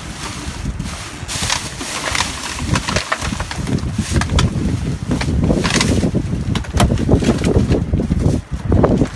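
Plastic bags rustling and drink bottles knocking and clattering together as hands rummage through a dumpster full of bagged bottles, over a steady low rumble.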